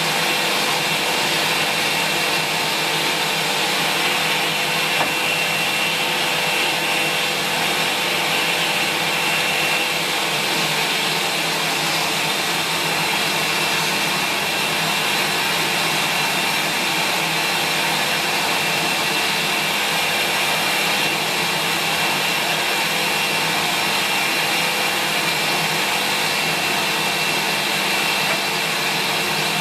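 Sanyo SCA-7AX bagged upright vacuum cleaner running steadily while vacuuming, its motor giving an even, unbroken high-pitched whine.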